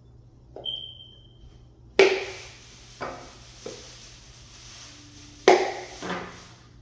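A series of sharp knocks with short ringing tails, the two loudest about two seconds in and near the end. There is also a brief thin high squeak under a second in.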